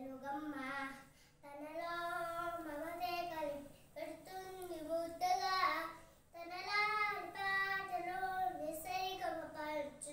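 A young boy singing a Telugu song about mother, unaccompanied, in long held notes. He pauses briefly twice for breath.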